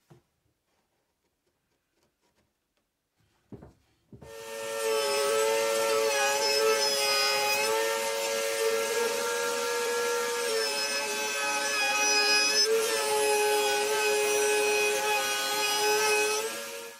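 Router in a router table starting about four seconds in and running with a steady high whine while its bit trims the curved edge of a plywood protractor disc turned on a pivot pin. The pitch dips slightly now and then as the cut loads it, and it stops near the end.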